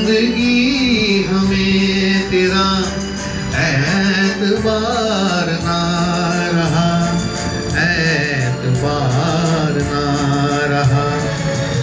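Man singing a Hindi film song into a handheld microphone over a recorded backing track with a steady beat.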